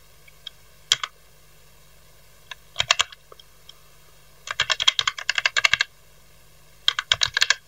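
Computer keyboard typing in bursts: a few keystrokes about a second in and again near three seconds, then a long fast run of keys from about four and a half to six seconds, and another quick run near the end.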